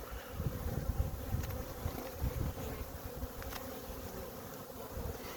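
Honey bees buzzing around a nuc hive in a steady hum, with some low rumble underneath.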